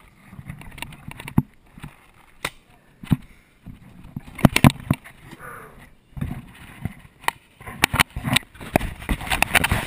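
Footsteps on a leaf-strewn gravel path and irregular knocks and clicks of gear being handled, the loudest knocks about halfway through as a paintball marker is set into a metal rack on a wooden bench. Clothing rubs on the body-worn camera.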